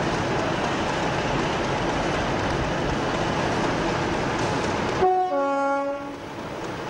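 Diesel locomotive running with a steady loud noise, then about five seconds in it sounds its two-tone horn: a short higher note followed by a longer lower note, about a second in all.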